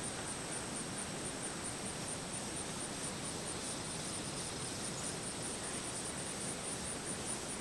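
Steady outdoor hiss with a thin, high insect trill in the background. The trill breaks into quick, regular pulses in the last couple of seconds.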